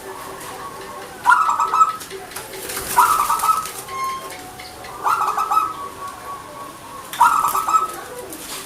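Zebra dove (perkutut) cooing: four short phrases of quick, rolling coo notes, about two seconds apart.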